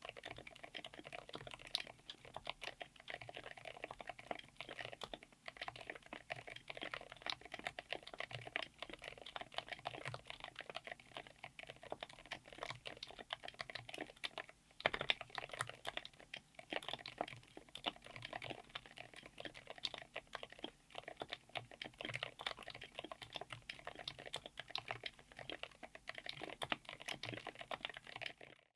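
Continuous fast typing on Gateron Smoothie Mint silent linear switches, which are full POM, in a 60% keyboard with an FR4 plate and aluminium case: a dense, steady run of keystrokes.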